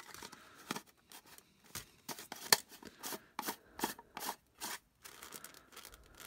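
Hard plastic clicking and scraping as hands twist and work the body of a collapsible LED camping lantern: a string of irregular sharp clicks, the loudest about two and a half seconds in.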